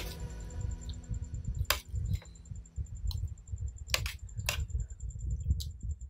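Metal spoon clicking against a white serving tray while scooping rice, a handful of sharp separate clicks over low handling noise.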